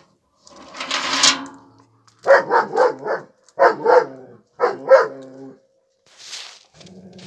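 Dog barking in three quick runs of short barks, about nine in all, after a rough noisy burst about a second in.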